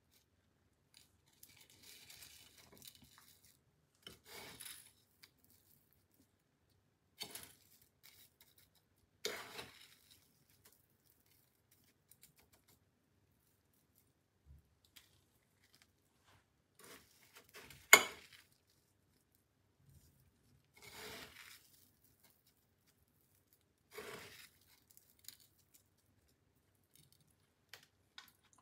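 Raw chicken strips being pressed and turned in a plate of dry crumb coating: short crunchy rustles every few seconds, with one sharp click about eighteen seconds in, the loudest sound.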